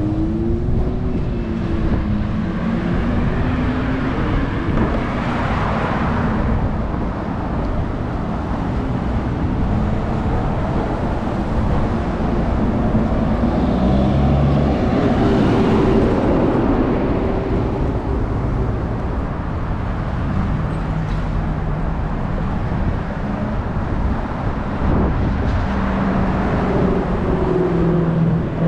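Road vehicle noise: a steady rumble of car engines and tyres, with engine tones wavering in pitch and the noise swelling and fading a few times.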